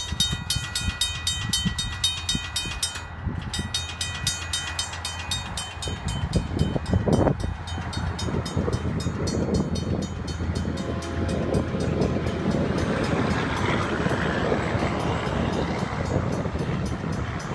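Railroad grade-crossing warning bell ringing in a rapid, even rhythm over wind rumble on the microphone. From about eleven seconds in, the horn of an approaching freight train sounds in the distance.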